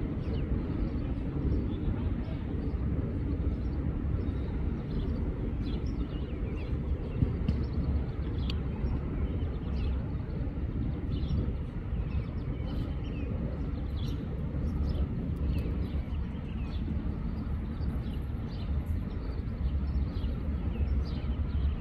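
Outdoor ambience: a steady low rumble with scattered faint short chirps or distant calls above it.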